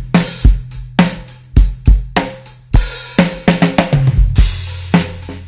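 Recorded acoustic drum kit played back with all its mic tracks mixed together: kick, snare and cymbals in a steady groove, with a quicker run of hits about three and a half seconds in.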